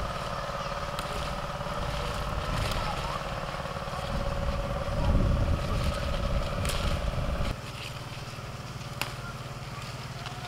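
Tractor engine running steadily, dropping to a quieter note about seven seconds in, with a few sharp snaps as bean pods are picked off the plants.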